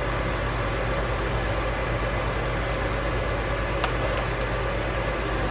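Steady mechanical hum and hiss of a running fan or appliance in the kitchen, with two faint light clicks about four seconds in.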